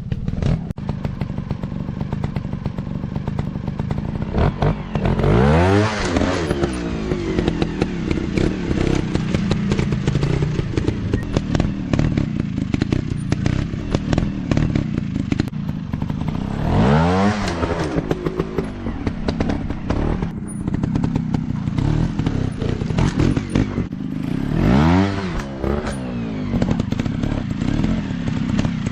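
Dirt bike engine running steadily, revved up and back down three times, with scattered clatter.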